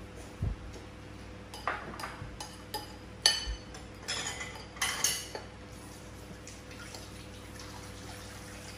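Spoons clinking against porcelain bowls and plates during a meal: a run of sharp clinks in the first five seconds or so, a few of them ringing briefly, then only a faint steady hum.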